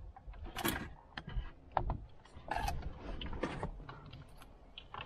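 Irregular clicks and rustles of plastic plug connectors and wiring being handled and pushed into the back of an aftermarket car stereo head unit.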